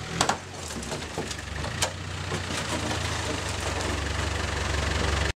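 Land Rover Discovery 1's Tdi four-cylinder turbodiesel engine idling steadily, with a few sharp knocks near the start and another about two seconds in.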